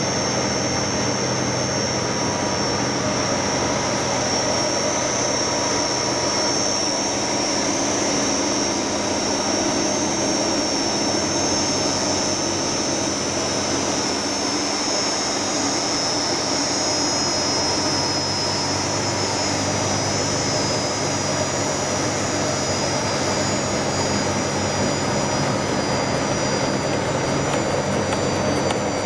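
Bolt thread rolling machine running: a steady mechanical noise with a high, even whine.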